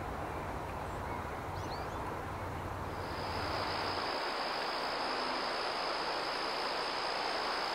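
Outdoor wetland ambience: a steady rushing noise, joined about three seconds in by a steady high-pitched insect trill that holds on without a break.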